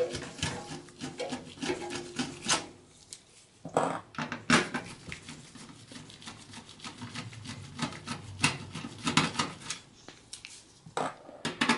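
Screwdriver backing out motherboard screws inside the sheet-steel case of an HP Pro 3405 micro tower: irregular clicks, taps and short scrapes of the tool against the screws and metal chassis.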